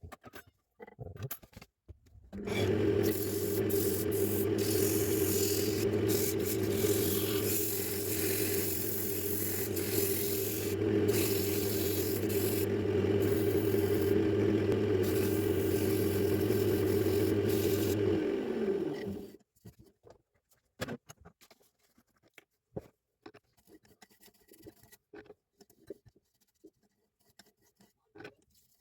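An electric power tool running steadily on wood, with a low hum under a rubbing, rasping noise. It is switched off and spins down with a falling pitch; scattered small taps and scrapes of handling follow.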